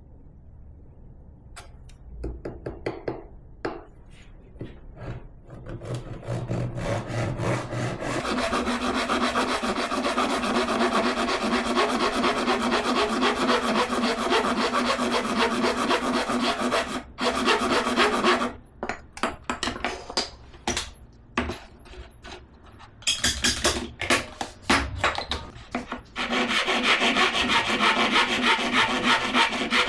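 Wood being cut or worked by hand with a tool stroked rapidly back and forth in an even rhythm. It starts with a few separate strokes, runs steadily from about eight seconds in, breaks off and stutters for a few seconds past the middle, then runs steadily again.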